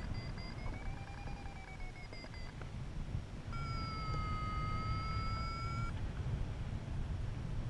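Paragliding variometer. For the first two and a half seconds it gives fast beeps that rise and then fall in pitch, signalling climb. About three and a half seconds in comes a lower, continuous tone lasting a little over two seconds, the sink signal. Wind rushes over the microphone throughout.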